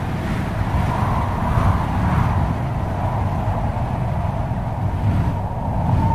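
Wind sound effect: a steady low rush of wind with a thin, steady whistle through it, swelling in a gust early on and the whistle growing stronger near the end.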